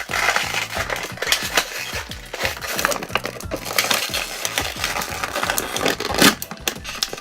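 Plastic and cardboard packaging crinkling and crackling as it is handled and pulled open, a dense run of clicks and rustles.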